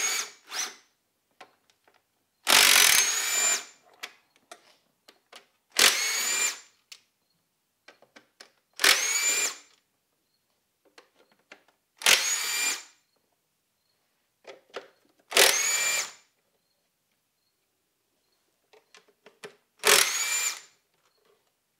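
Cordless power tool spinning out the bolts and nuts that hold a V6's upper intake plenum to the lower plenum. About seven short whirring runs, each under a second, come a few seconds apart, each with a rising whine as the motor spins up. Light clicks of the socket and parts come between them.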